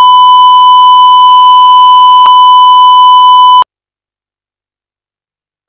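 Steady 1 kHz reference test tone accompanying colour bars, very loud and a little distorted, with one faint click about two seconds in. It cuts off abruptly about three and a half seconds in, leaving silence.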